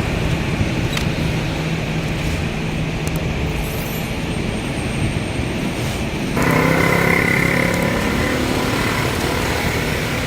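Road traffic: a steady rumble of passing vehicles. About six seconds in it suddenly gets louder as a nearby engine joins in with a pitched hum.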